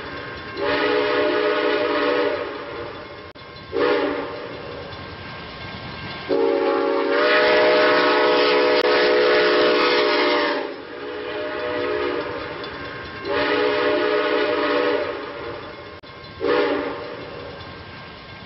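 Train horn blowing five blasts, the middle one long and the others short, over the steady running noise of a moving train.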